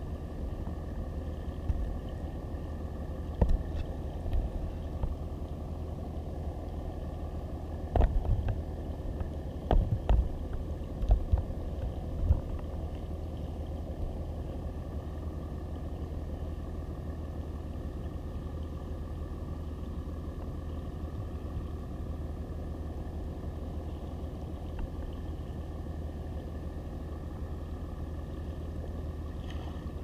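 Muffled underwater sound picked up through a GoPro's waterproof housing: a steady low rumble, with a few knocks about three and a half seconds in and a cluster of them from about eight to twelve seconds in.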